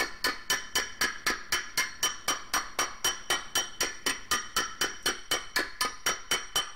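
Panel-beating hammer striking the dented sheet-metal lid of a motorcycle tool box held over a dome anvil, in a steady rapid rhythm of about five blows a second, each with a short metallic ring. The blows are glancing strokes around the dent to raise the low spot.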